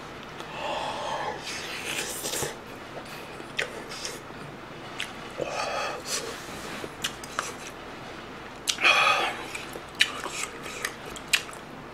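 A person slurping chicken soup with glass noodles from a spoon and cup: four or five short slurps, with chewing and sharp light clicks of the spoon in between.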